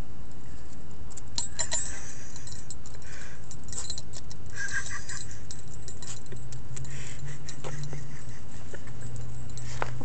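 A chihuahua's metal collar tag jingling and clicking in short flurries as the dog moves its head over a leaf bug, over a steady low hum.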